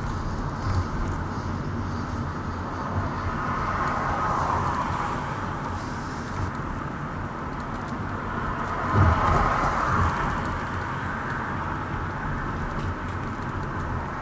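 Car driving on city streets, heard through a dashboard camera inside the cabin: steady tyre and road noise that swells twice, the second time with a low thump about nine seconds in.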